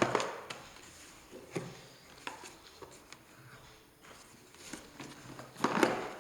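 A hard plastic tool carrying case being handled, giving scattered knocks and clicks, with a quick cluster of louder knocks near the end.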